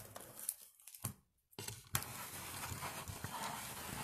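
Handling noise from a phone being picked up and moved: a few knocks, then from about a second and a half in a steady scraping rustle on the microphone, with one sharper knock.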